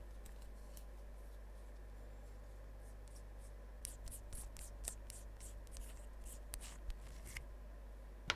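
Hands assembling a small RC car shock absorber: a run of light clicks and scrapes of the small parts about four to seven and a half seconds in, and one sharper click near the end, over a low steady hum.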